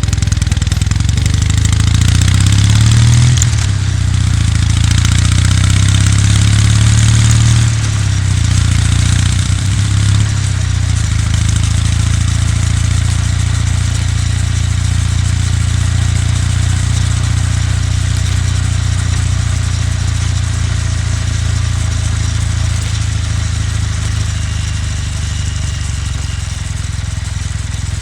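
Kawasaki W800's air-cooled parallel-twin engine running under way, its note rising and changing through the first ten seconds or so, then settling into a steady low-revving beat for the rest.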